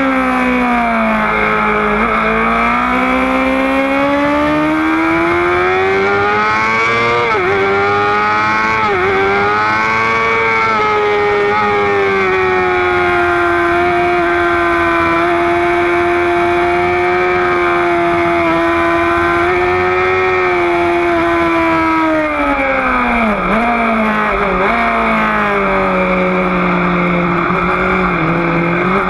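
Sport motorcycle engine at high revs, heard from on board over steady wind rush. The pitch falls as the bike slows into a corner at the start, then climbs with two quick dips at gear changes. It holds steady through a long stretch under throttle, then drops again with two more sharp dips and slows near the end.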